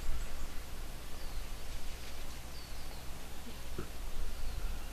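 Outdoor ambience: a steady low background hum and hiss, with a few faint, short falling bird chirps.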